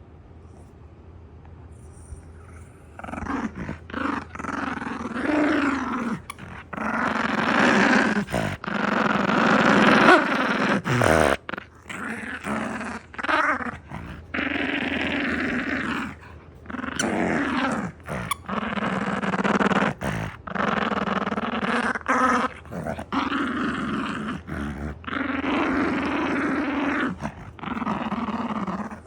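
A dog growling loudly in long, rough stretches broken by short pauses, starting about three seconds in.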